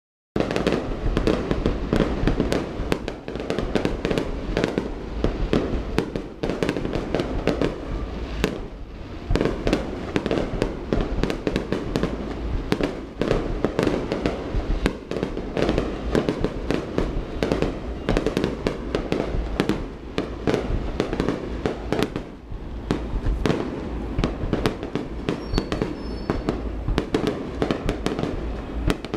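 Aerial fireworks display: many shell bursts and crackles in quick succession over a steady low boom, starting abruptly at the very beginning.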